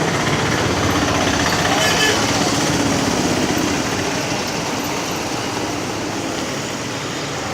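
A small engine running steadily, slowly growing fainter over the second half.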